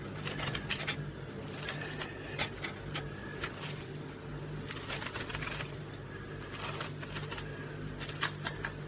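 A small hand tool scraping and gouging the flesh out of a raw turnip to hollow it into a little bowl: a run of irregular crisp scrapes and clicks.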